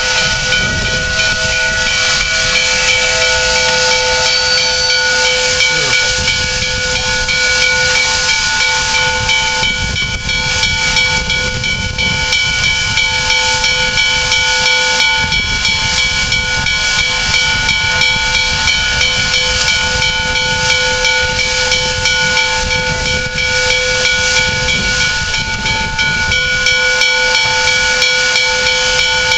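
Canadian National 2-8-2 steam locomotive No. 3254, standing, letting off steam in a loud steady hiss, with several held tones ringing through it.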